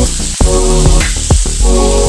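Background music with a beat and a heavy bass line, over a faint sizzle of meat frying in a wok.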